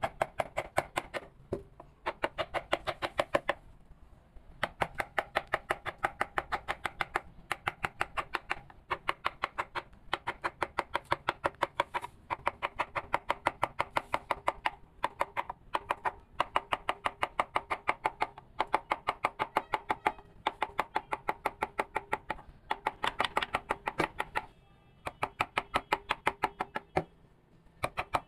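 Rapid, even taps of a mallet on a wood-carving chisel, about eight to ten strikes a second, in runs of a few seconds with brief pauses between them.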